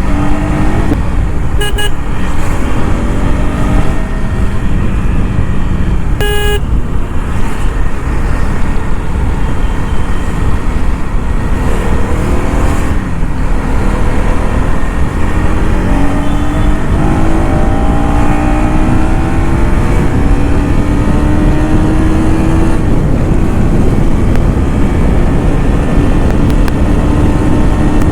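KTM Duke 250's single-cylinder engine through its stock exhaust, riding and pulling through the gears: the note climbs in pitch and drops back at each shift. A horn sounds briefly about two seconds in and again about six seconds in.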